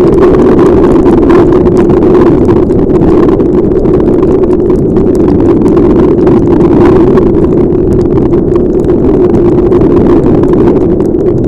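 Loud, steady rush of wind and riding noise on a motorcycle helmet camera's microphone in heavy rain, with a constant low drone.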